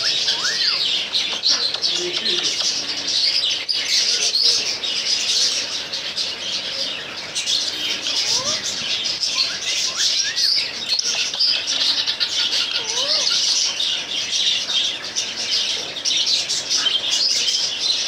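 Dense, unbroken chirping and chattering of many small birds, with a few separate short whistles that sweep up and back down in pitch.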